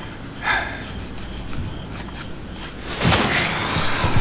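A nail file rasping against fingernails in short strokes, with a louder rustling of bedding about three seconds in.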